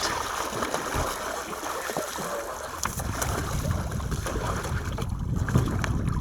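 Steady rush of wind and water around a small fishing boat at sea, with a few light knocks. A low rumble grows louder about halfway through.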